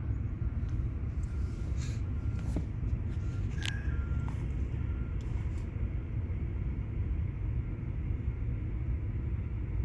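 Steady low rumble of a vehicle engine running, with a few faint ticks around the middle.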